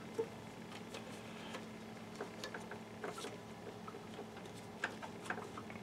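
Small scattered clicks and taps of hands working ribbon-cable connectors and latches inside a projector, over a steady low hum.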